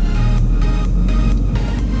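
Background music with heavy bass and a steady beat.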